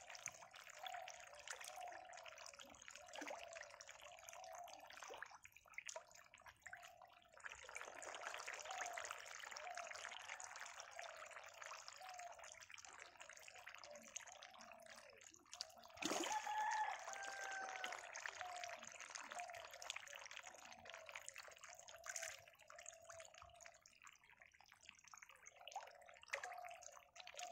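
Water trickling and splashing at a pond, with a faint short chirp repeating about twice a second.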